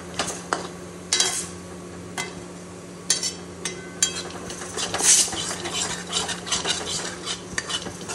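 Metal spatula scraping and clinking against a metal kadhai as a spiced chilli-garlic-ginger paste is stirred and roasted in oil, in an uneven run of scrapes with a few sharper clinks.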